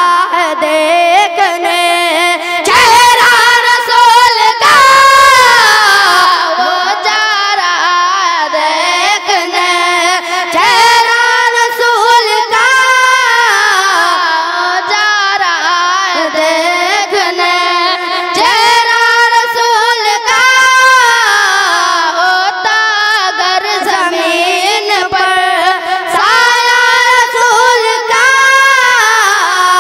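Boys' voices singing a naat, an Urdu devotional poem in praise of the Prophet, through microphones. They sing long held, ornamented notes that glide up and down.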